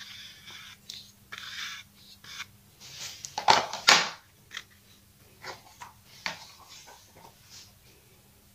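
A paintbrush being scrubbed in a small container to clean off epoxy: a run of short scratchy strokes, with the loudest two about three and a half seconds in.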